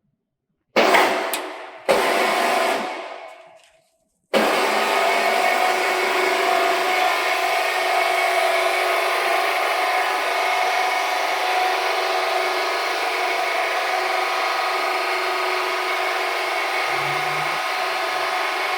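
Two loud sudden knocks, each dying away over a second or two, then a motor-driven machine starts up and runs with a steady whirring hum.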